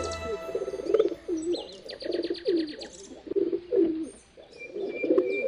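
Domestic pigeons cooing over and over in low, falling calls. Higher chirps and a quick trill join in about two seconds in.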